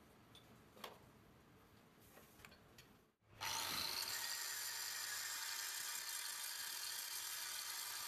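A few light clicks in a quiet workshop, then, about three and a half seconds in, an angle grinder with a flap disc starts grinding the welded area around the hub of a tractor wheel centre plate turning in a lathe. It is a steady high whine with a low hum under it.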